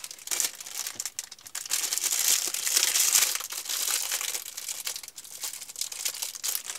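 Clear plastic packaging bags crinkling and rustling as the packed accessories are handled and unwrapped, a dense run of small crackles that is loudest in the middle.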